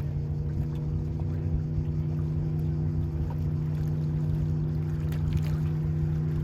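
MerCruiser 496 Mag 8.1-litre V8 of a Baja 232 speedboat running at a steady speed, its low engine tone holding constant.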